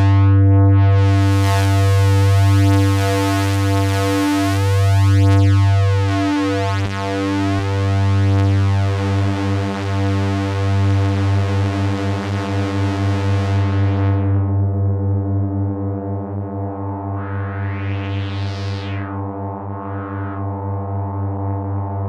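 Minimoog Model D synthesizer emulation holding one low sustained note while its knobs are turned live: the tone brightens and then dulls again. About halfway through a fast pulsing wobble sets in, and near the end the sound twice sweeps briefly bright and back.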